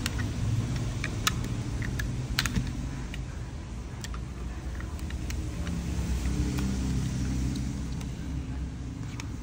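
Scattered light clicks and taps as rubber bands are stretched and snapped around a smartphone and the phone is handled, the sharpest couple of clicks in the first few seconds, over a steady low rumble.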